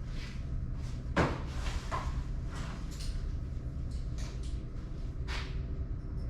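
Large cardboard shipping box being opened by hand: a series of short cardboard scrapes and knocks, the loudest about a second in, over a steady low hum.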